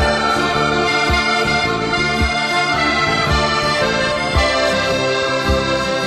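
Background music: sustained chords over a low beat about once a second.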